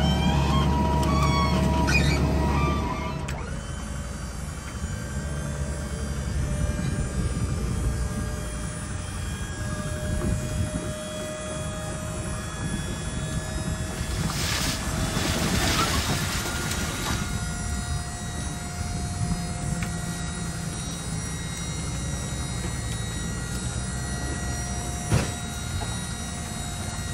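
Ute's hydraulic tipping tray being raised to dump a load, its pump running steadily over the truck's engine. A louder low rumble fills the first three seconds.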